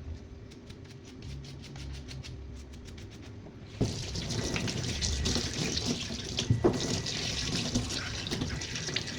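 Water from a tap starts running a little under halfway through and keeps splashing steadily, with a few knocks, against a faint low hum before it.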